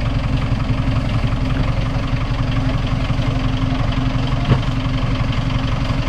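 Off-road 4x4's engine idling steadily, with one short knock about four and a half seconds in.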